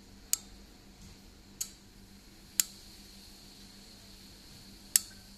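A magnetic wand tapping the glass window of a Honeywell XNX gas transmitter as menu options are selected: four sharp, light clicks, the last, about five seconds in, the loudest. A faint steady hum lies underneath.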